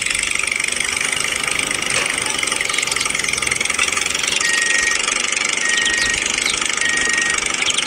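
Miniature toy tractor driving with a steady, fine engine-like buzz. From about halfway a high beep repeats three times, evenly spaced.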